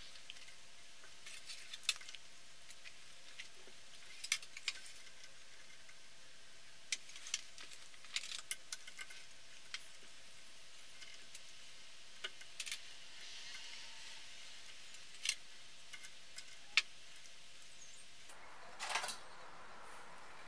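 Thin stainless steel wire being wound by hand around a club hammer's wooden handle, giving scattered sharp metallic clicks and ticks as the coils are pressed tight together. A short scrape comes near the end.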